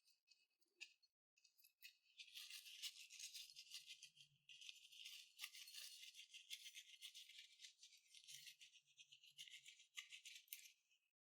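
Slime being squished and worked by hand, a faint, dense crackling of many small wet pops and clicks.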